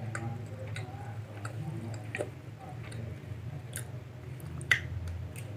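Soft, irregular small clicks and taps over a steady low hum, with one sharper, louder click about three-quarters of the way through.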